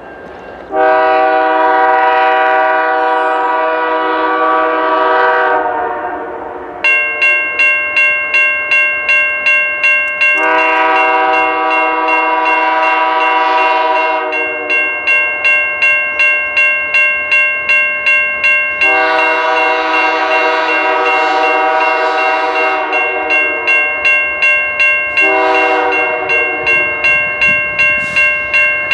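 Freight locomotive air horn sounding four long blasts as the train approaches. From about a quarter of the way in, a crossing warning bell rings steadily about twice a second under and between the blasts.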